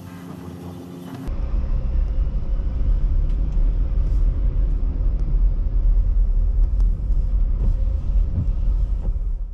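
Loud, steady low rumble of a vehicle moving slowly, heard from inside a camper van; it starts suddenly about a second in, after a short stretch of music.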